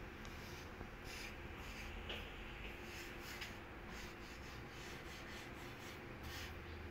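Quiet steady background noise with a few faint, short rustles scattered through it.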